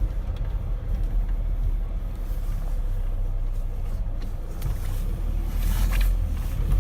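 Steady low engine and road rumble heard inside the cab of a 1995 Nissan Hardbody pickup while it is being driven.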